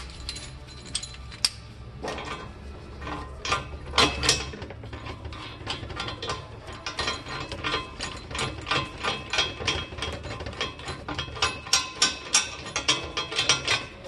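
Metal rattling and clicking as a rear axle bearing puller is worked into a Ford 8.8 axle tube and set behind the wheel bearing. The clicks come rapid and uneven, denser in the second half, with a few sharper knocks about four seconds in.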